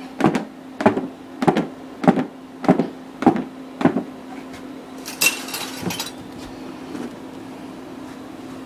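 Green tomato slices and flour being shaken in a lidded plastic dredging box, knocking against its sides in a steady rhythm about every half second, seven or so knocks that stop about four seconds in. A short rustling noise follows.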